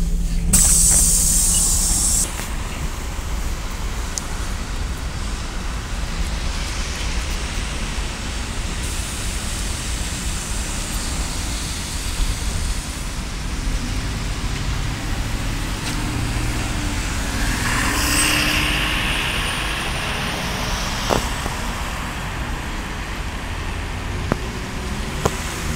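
MAZ-203 city bus running at a stop and then pulling away, with a steady diesel rumble and traffic noise. A loud burst of air hiss comes about half a second in and lasts a second and a half, and more air hissing with a faint rising whine comes about two-thirds of the way through as the bus moves off.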